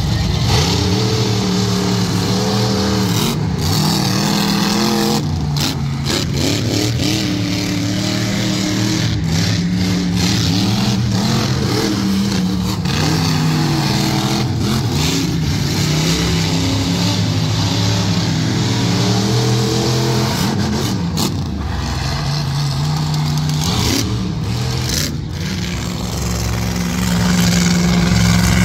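Monster truck engines running hard and revving during a race, their pitch repeatedly climbing and dropping as the drivers get on and off the throttle.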